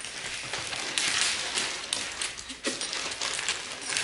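Zip-top plastic bag of dog treats rustling and crinkling as it is handled, densest from about one to two and a half seconds in, with a few light knocks.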